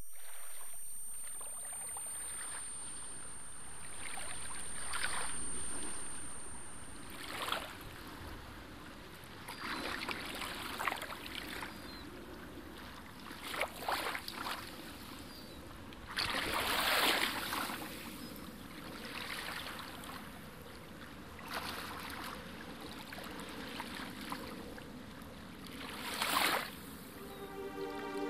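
Small waves lapping and washing onto a stony shore, swelling in irregular surges every few seconds.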